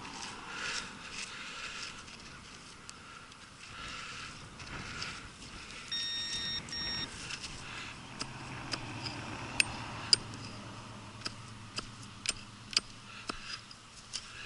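Rustling and shuffling, then two short electronic beeps about six seconds in, followed by a run of sharp metallic clinks that are the loudest sounds, typical of a pick or digging tool striking hard, stony ground.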